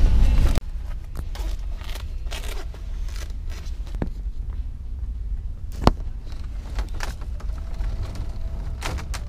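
Handling noise from a handheld camera: a steady low rumble with scattered rustles and clicks, and one sharp click about six seconds in. A louder noisy stretch at the start cuts off abruptly about half a second in.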